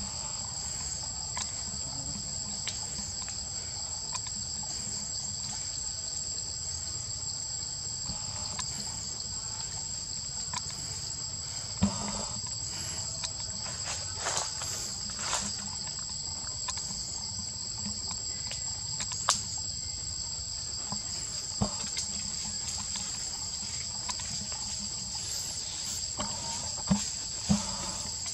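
Steady forest insect chorus, a constant high buzz holding two even pitches, with scattered sharp clicks and snaps every few seconds.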